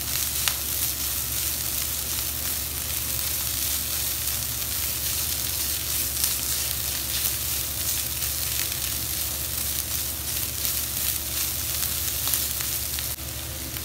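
Shredded chicken, onion and capsicum sizzling and crackling in a non-stick frying pan as a silicone spatula stirs them, over a steady low hum; the sizzle drops a little near the end.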